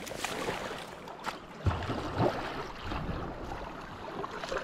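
Kayak paddle strokes splashing in the river, with wind rumbling on the microphone from a little under two seconds in.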